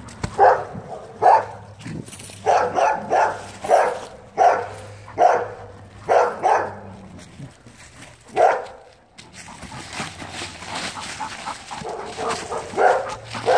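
A dog giving short, repeated barks with a whiny edge, about a dozen over the first nine seconds, while it refuses to leave its big branch. After a quieter stretch of rustling in dry leaves, there are a few more barks near the end.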